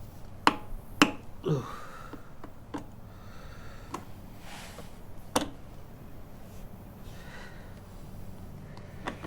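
A few sharp clicks and light taps, three of them louder, from handling small tools and objects, over a faint steady hum.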